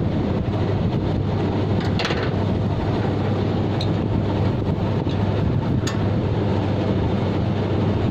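Steady low hum with wind rushing on the microphone. A few faint metallic clicks come from a hex key working the set screw on a split-AC condenser fan motor.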